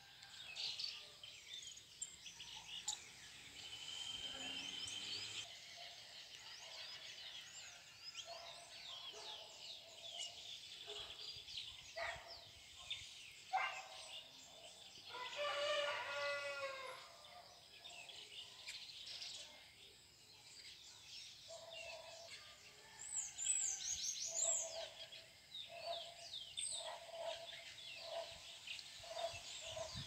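Several small birds chirping and calling, with many short high chirps throughout. About halfway through there is one louder, drawn-out call, and a burst of bright falling chirps comes later.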